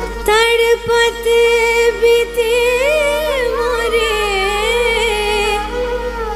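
Hindustani thumri: a woman's voice sings a slow, wordless, ornamented line with gliding pitch bends, over harmonium, sarangi and a tanpura drone.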